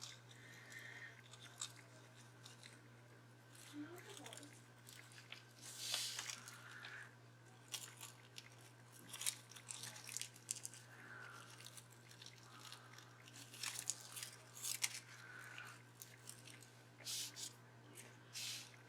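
Paper flowers and a dried corsage being handled and pressed into glue: quiet, crisp crackling and rustling in scattered short bursts, over a steady low hum.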